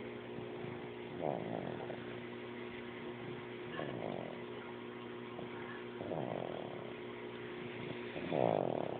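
Snoring: a rough, rasping snore about every two and a half seconds, four in all, the last the loudest, over a steady low hum.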